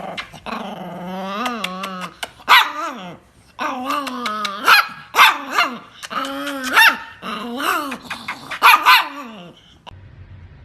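A dog grumbling and barking back in a run of wavering, drawn-out growl-barks and whine-like yowls, stopping about ten seconds in. It is the dog 'talking back' in protest at its owner.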